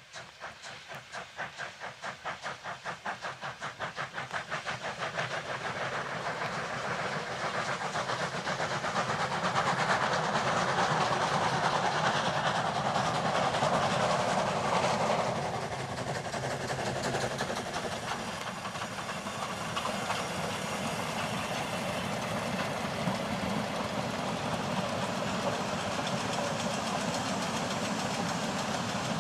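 Narrow-gauge steam locomotive working a train, its exhaust chuffing in an even rhythm of about three beats a second and growing louder as it approaches. It is loudest as it passes, then drops away about halfway through, leaving the vintage carriages rolling past with a steady rumble and clatter on the rails.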